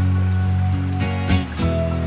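Background instrumental music of held notes, moving to new notes about one and a half seconds in.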